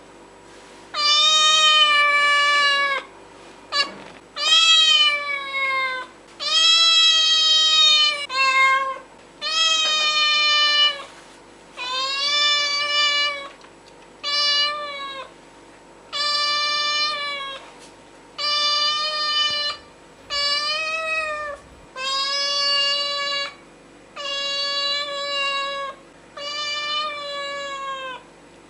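A cat meowing repeatedly: about a dozen long, drawn-out meows, one every two seconds or so, each rising a little and then falling away.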